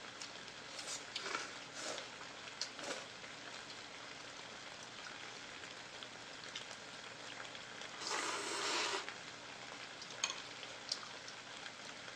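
Noodles being slurped and eaten from bowls: several short slurps, and one longer, louder slurp about eight seconds in. Under them runs a steady sizzling hiss from the shabu-shabu broth simmering in the pot on the portable burner.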